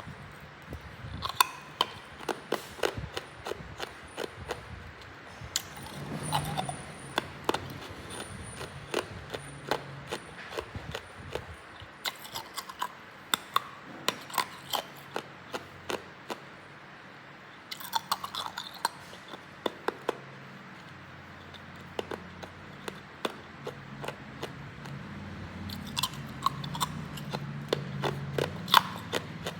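Hard ice being bitten and chewed close to the microphone: a rapid run of sharp cracks and crunches in clusters, with short pauses between bites.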